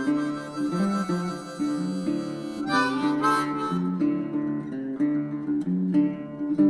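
Background music: harmonica over acoustic guitar.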